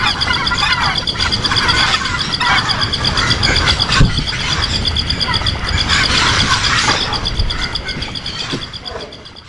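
Birds chirping in scattered short calls over a steady, high, pulsing trill; the sound fades out near the end.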